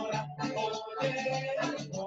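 Dance music playing with a steady beat.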